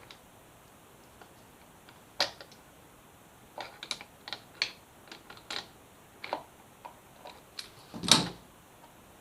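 Irregular light metallic clicks and taps of an adjustable wrench working the lock nut on a Yamaha FZ6R's gear-shift linkage, backing the nut off. There is a sharper click about two seconds in and a longer, louder clunk near the end.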